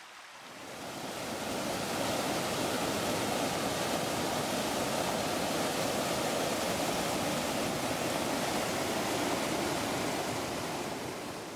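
A mountain stream in flood, its muddy water rushing in a steady, turbulent wash. It fades in over the first two seconds and fades out near the end.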